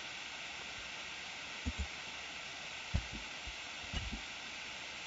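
Steady hiss of an open microphone with a few faint, short low thumps: a computer keyboard's spacebar being pressed.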